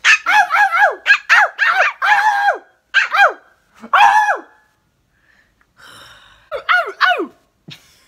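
Small puppy barking: quick runs of short, high-pitched barks, about a dozen in the first four seconds, a pause of about two seconds, then about five more.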